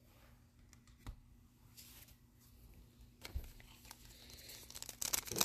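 Faint handling with a couple of light knocks, then the crinkle of a foil Panini Illusions trading-card pack being picked up near the end.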